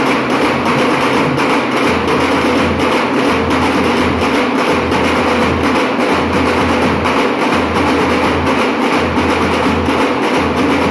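Dhol-tasha troupe drumming: many dhol barrel drums beaten together in a loud, fast, steady rhythm, the deep drum beats coming in pulses.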